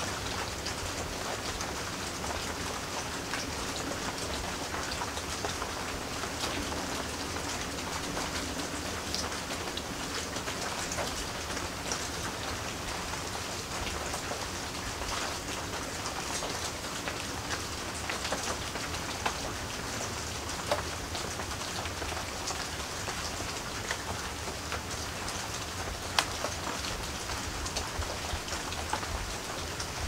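Steady rain falling and pattering on surfaces, an even hiss with scattered sharper drop hits, a few louder ones in the second half.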